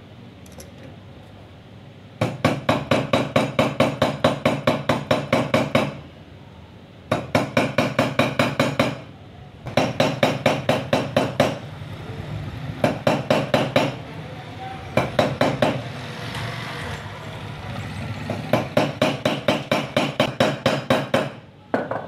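Rapid runs of light hammer taps, about six a second, striking a metal tool against the bearing seat of a ceiling fan's motor cover. The taps raise small marks all around a seat that has worn loose, so the bearing will fit tight; the loose seat is what made the fan knock.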